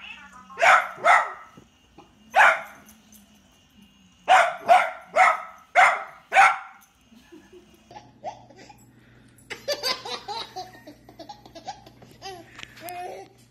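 Dachshund barking: about eight short, sharp barks in quick runs. In the last few seconds a baby laughs and babbles, quieter than the barks.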